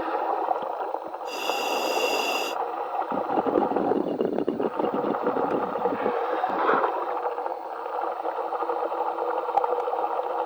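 Underwater diver's breathing and exhaust bubbles gurgling over the dive radio while the welding current is switched off between tacks, with a brief high-pitched whine about a second in.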